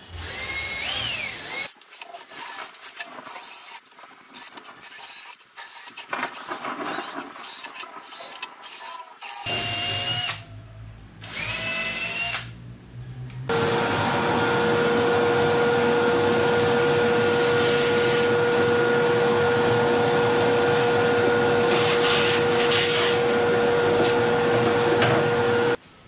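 Cordless drill working into a wooden speaker baffle in short bursts, its motor whine rising as it spins up. About halfway through this gives way to a loud, steady machine noise with a constant hum that cuts off near the end.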